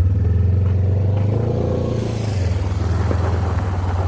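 Polaris RZR 900 side-by-side's twin-cylinder engine revving up and pulling away, its pitch swelling to a peak about a second and a half in and then easing. A rushing hiss joins about two seconds in.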